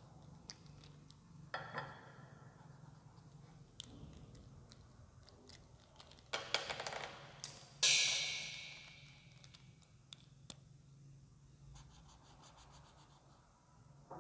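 Small clicks and clattery rattles of sketch pens being handled and swapped, over a low steady hum. About eight seconds in comes a sharper, louder clatter with a hissing tail that fades over about two seconds.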